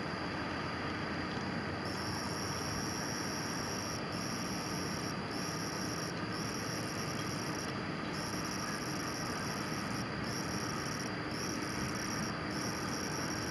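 Night insects calling: a high-pitched steady trill that starts about two seconds in and drops out briefly every second or two, over a steady outdoor hiss.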